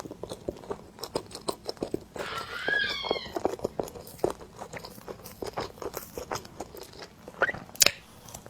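Chewing of soft cream bread, a dense run of small wet clicks and crunches. A cat meows once, about two to three seconds in.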